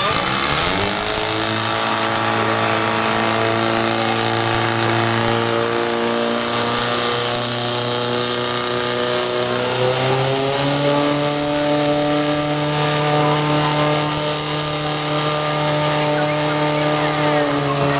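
A portable fire pump's engine running at high revs, driving water through the hose lines in a firefighting-sport attack. It revs up at the start, holds a steady note, then climbs a step higher about ten seconds in.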